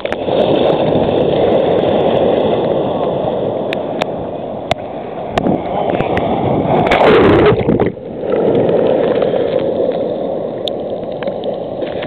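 Sea water sloshing and gurgling against a waterproof camera as it dips under the surface and comes back up, with a few sharp clicks; the sound drops out briefly about eight seconds in.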